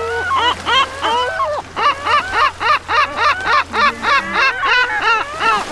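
Gull calling: a few separate yelping calls, then from about two seconds in a fast, regular series of about four notes a second, a gull's long call.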